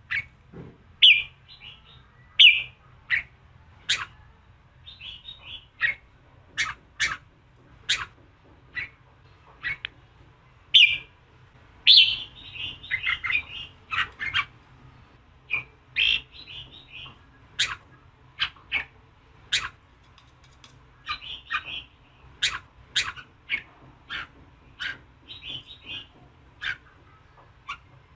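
Red-whiskered bulbul calling in its harsh 'giọng kình' fighting voice, used to provoke and fire up male bulbuls. Short, sharp calls come about one or two a second, mixed with brief chattering phrases.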